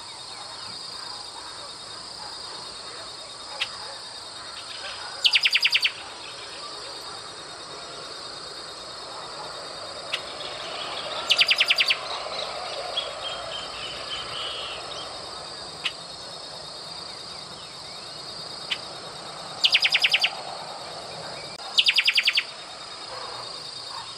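Scarlet-headed blackbird calling: four short, loud, rapid rattling trills, spaced several seconds apart, with the last two close together. A steady high buzz runs underneath.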